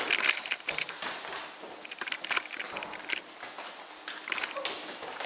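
Irregular knocks, clicks and rustles from a handheld camera being carried along while walking, mixed with footsteps.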